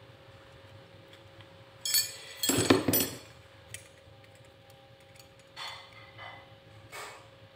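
Steel wood drill bits clinking against each other and against a hard surface as they are handled: a burst of ringing metal clinks about two seconds in, then a few lighter knocks.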